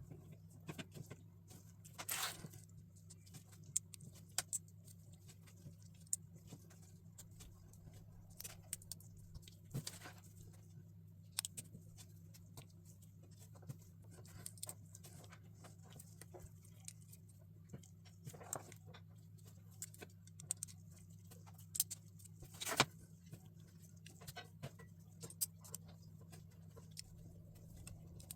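Plastic LEGO pieces being handled and pressed together: scattered light clicks and taps, a few of them louder, over a faint steady low hum.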